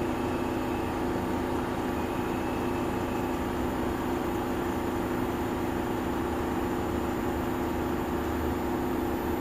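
Bosch IDS 2.1 heat pump's outdoor unit running steadily, its variable-speed inverter compressor and condenser fan giving a constant hum with several held tones. The compressor is settling at a speed to match the load.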